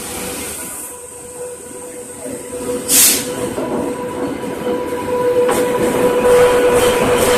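WAP7 electric locomotive arriving and passing close by on the next track, its wheels running over the rails with a steady hum that grows louder as it draws level. A short burst of hiss about three seconds in.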